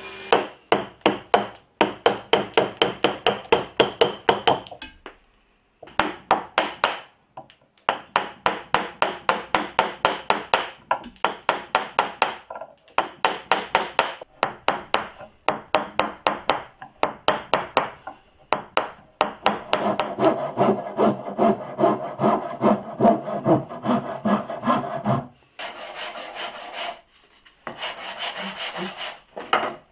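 Hand tools cutting and scraping a wooden block: runs of quick strokes, about three a second, each with a sharp click, broken by short pauses. From about 20 seconds in the strokes run together into a denser scraping for a few seconds.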